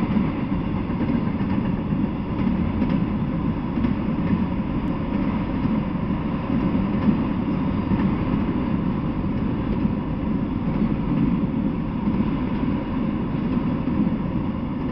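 Freight train of autorack cars rolling past on the rails: a steady rumble of wheels on track.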